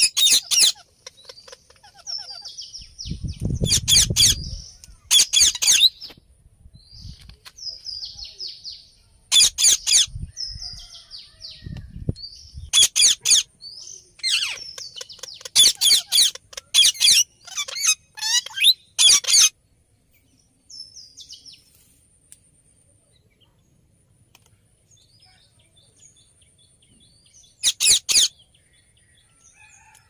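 Rose-ringed parakeets calling: loud, shrill screeches in quick runs through the first twenty seconds, with softer chattering between them, then mostly quiet until one more run of screeches near the end.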